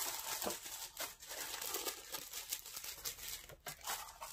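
Tissue paper crinkling and rustling as it is pulled open by hand, with many short, sharp crackles.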